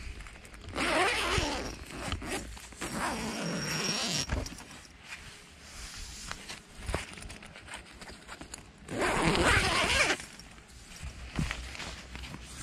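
A tent door zipper being pulled open in three separate runs, about a second in, about three seconds in, and the loudest about nine seconds in, with fabric rustling between them.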